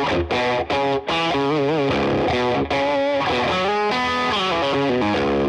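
Background music: a song led by distorted electric guitar.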